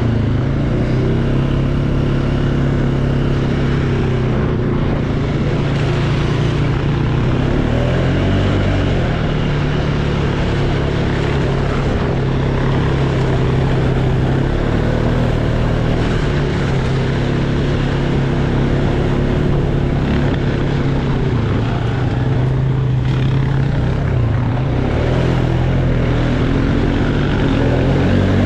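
ATV engine running under way, its pitch rising and falling with the throttle, dipping briefly twice.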